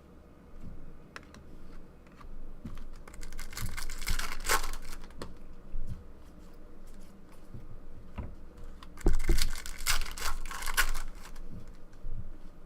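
Card packs being torn open and crinkled, and stiff trading cards clicked and flicked through by hand, with two spells of rustling, about three seconds in and again about nine seconds in.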